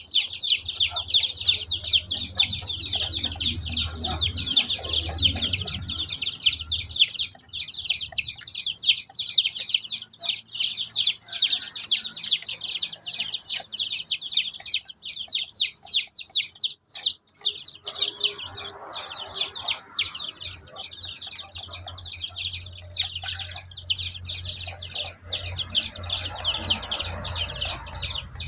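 A flock of young chicks peeping nonstop. Many short, high-pitched, falling chirps a second overlap into a steady chorus.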